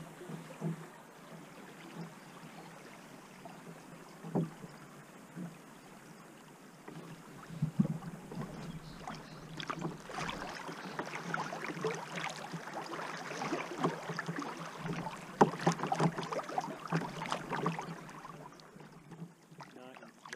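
River water rippling and splashing around a kayak's hull as it runs through a riffle. The water is quieter at first, then grows busier and louder with many small splashes through the middle, and dies down near the end as the water goes calm.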